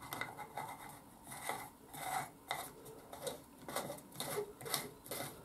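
Screw cap being turned by hand onto a motorcycle's front brake fluid reservoir, the threads rubbing in a series of short, irregular strokes as it is tightened.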